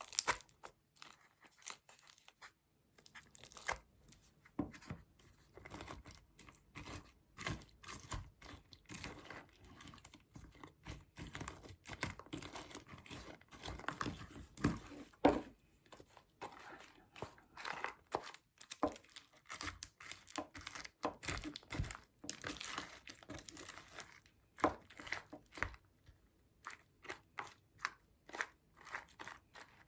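Slime being squeezed, stretched and pulled apart by hand, giving a run of irregular crackling, popping and tearing sounds.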